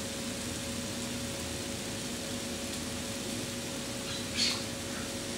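Vegetables frying in a pan, a steady sizzle with a low hum beneath it, and a short louder sizzle about four seconds in as raw chicken pieces go into the hot pan.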